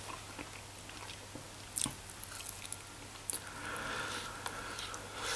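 Someone biting meat off a pork rib and chewing, soft wet mouth sounds with a few faint clicks.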